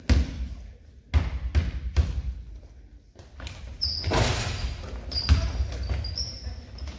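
A basketball dribbled several times on a hardwood gym floor before a free throw, echoing in the hall, followed by sneakers squeaking on the court as players go for the rebound.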